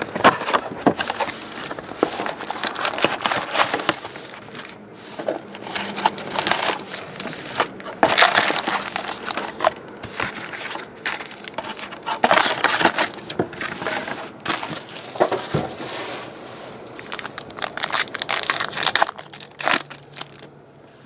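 Trading card box and its 2013 Golden Age packs being handled, with irregular crinkling and rustling of the cardboard and pack wrappers, then a pack wrapper torn open near the end.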